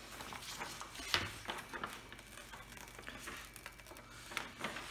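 Cover paper on a diamond painting canvas rustling as it is lifted and handled, in scattered small rustles and clicks, with one louder rustle about a second in.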